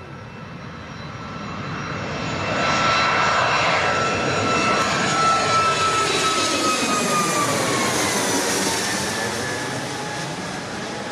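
Boeing 737 MAX 8's CFM LEAP-1B turbofans climbing out just after takeoff and passing low overhead. The jet noise swells over a couple of seconds and stays loud, and a high engine whine drops in pitch as the aircraft goes by, then the sound slowly eases off.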